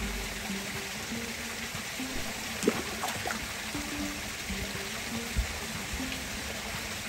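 Soft background music of short held notes over a steady rushing hiss, with one sharp click or knock about two and a half seconds in.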